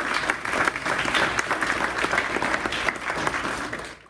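Audience applauding with dense, steady clapping that fades out near the end.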